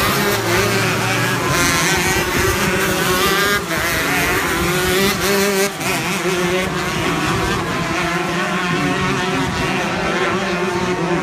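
Several 125cc two-stroke shifter kart engines racing together, their pitches rising and falling as they rev and shift.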